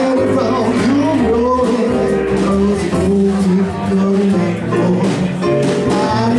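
Live band music: keyboard, electric bass and drums playing, with a man singing into a microphone.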